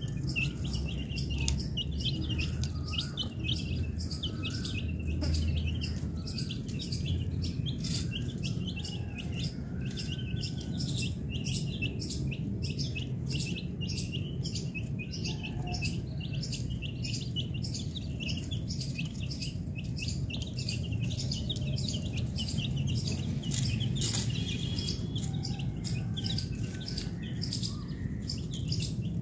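A flock of young domestic chicks peeping continuously: many short, high chirps overlapping in a rapid, unbroken stream.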